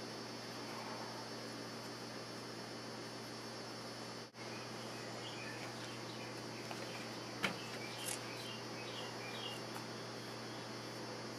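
Steady low electrical hum and hiss of room tone, with a few faint short high chirps and one sharp click a little past the middle.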